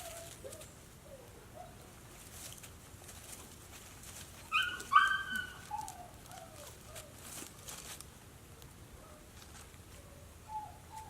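A dog whining in short, soft, falling whimpers, with a louder pair of short, high yelps about halfway through.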